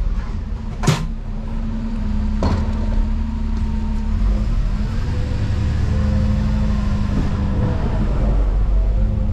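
Dennis Eagle Elite 6 refuse lorry's Volvo straight-six diesel running, heard from inside the cab as the lorry moves off, its engine note shifting in the second half. A sharp click about a second in and another fainter one about two and a half seconds in.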